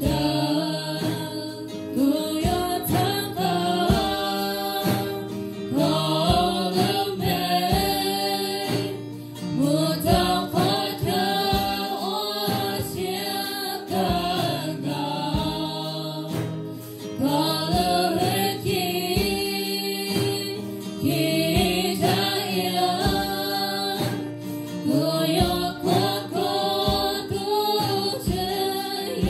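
A live worship band plays a Hmong praise song, with several women's voices singing together into microphones over strummed acoustic guitar and a drum kit keeping a steady beat.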